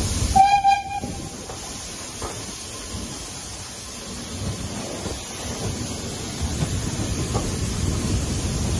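A short single blast of the BR Standard Class 4MT steam locomotive's whistle, about half a second in, over the steady running noise of the train heard from an open carriage window. The running noise eases in the middle and grows again near the end.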